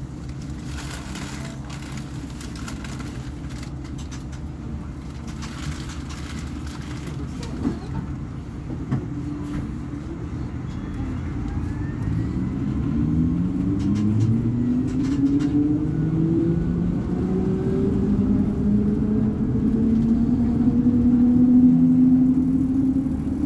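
Volvo B58 bus's diesel engine running steadily at low revs, with some light rattling clicks, then from about halfway revving up as the bus accelerates: the pitch climbs, drops back once at a gear change, and climbs again to near the end.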